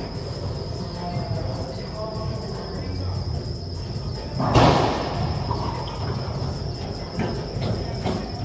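Racquetball serve: the racquet hits the ball with one loud, sharp crack about four and a half seconds in, ringing in the enclosed court, followed near the end by a few fainter knocks of the ball off the walls and floor. A steady high-pitched whine and a low hum run underneath.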